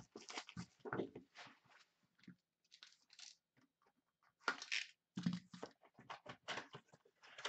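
Faint rustling and scraping of card packaging: cards and wrappers handled, then a trading-card hobby box slit open with a box cutter, in short scratchy bursts with a louder one about four and a half seconds in.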